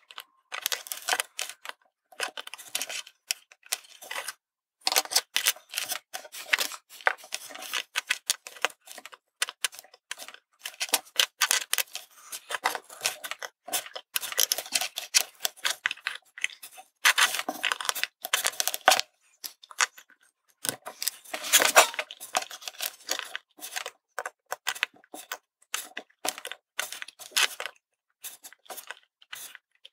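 Close-up clicks and scraping of metal tweezers and a soldering iron tip against small circuit boards, with boards and parts shifting on a wooden tabletop, in short busy bursts broken by brief silent gaps.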